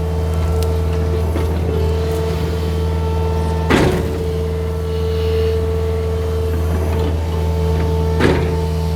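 John Deere mini excavator's diesel engine running steadily under work, with a steady whine over the engine note. Two sharp cracks stand out, one about four seconds in and one near the end.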